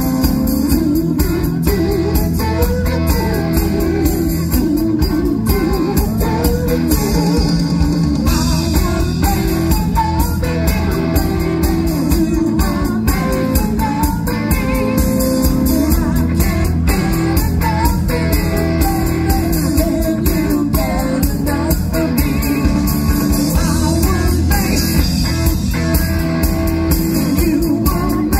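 Live rock band playing loudly and steadily, with singing over electric guitar and a drum kit.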